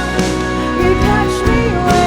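A contemporary Christian worship song playing: a lead melody over steady band accompaniment.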